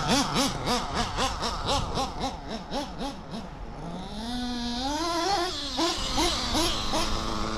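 Modded Novarossi P5-based .21 nitro RC buggy engine on a Reds 2104 tuned pipe, revving in quick repeated surges whose pitch rises and falls about three to four times a second, then climbing in one longer rise of revs about four seconds in before a few more short surges.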